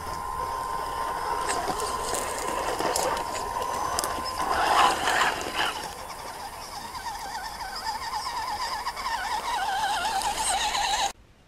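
Electric motors and gears of radio-controlled scale crawler trucks whining as they crawl over dry grass, the pitch wavering up and down with the throttle. There is a louder burst of noise about five seconds in, and the sound cuts off suddenly near the end.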